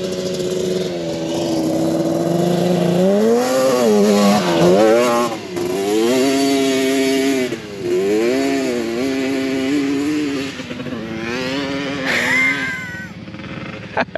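Off-road racing machine's engine revving hard as it runs the course. Its pitch rises and drops again several times as the throttle is worked, and it fades near the end.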